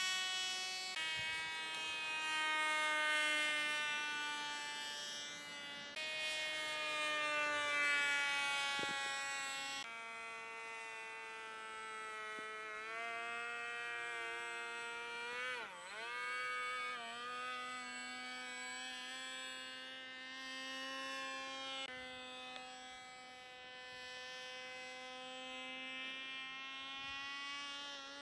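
Radio-controlled model jet's engine running in flight: a steady high buzzing tone whose pitch slowly rises and falls with the throttle. About halfway through the pitch dips sharply and recovers, and it jumps abruptly several times.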